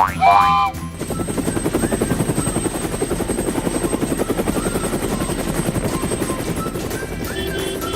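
A short rising cartoon sound effect, then a steady, rapid chopping sound like a helicopter rotor, with faint short chirps over it.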